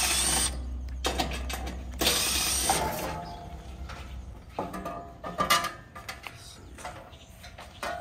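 Tools and the sheet-metal cover of an air-conditioner condenser being worked open. Two short loud rasping bursts come at the start and about two seconds in, followed by lighter metal clicks, clanks and rattles.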